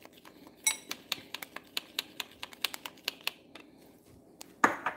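A quick, irregular run of light clicks and taps, with one ringing clink about a second in and a louder clatter near the end.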